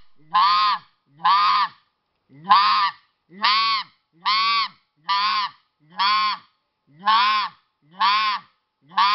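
Goose call blown with both hands cupped around it, giving a string of about ten evenly spaced honks, roughly one a second, each note rising and falling in pitch.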